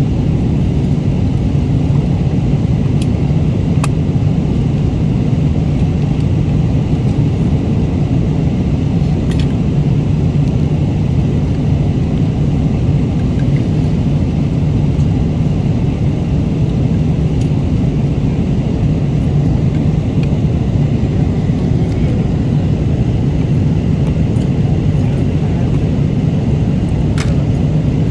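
Steady drone of an airliner cabin in flight, engine and airflow noise with a deep hum. A few faint clicks come through it.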